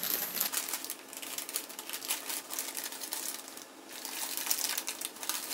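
Brown kraft paper wrapping crinkling and rustling as it is handled and pulled from around a potted plant. It is a dense run of small crackles, with a brief lull a little past the middle.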